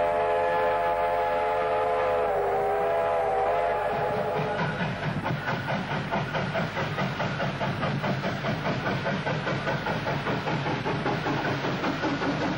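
Victorian Railways K-class 2-8-0 steam locomotive K160 blowing a long whistle, which wavers briefly about two seconds in and stops about four and a half seconds in. It then works on with a steady, rapid rhythm of exhaust chuffs.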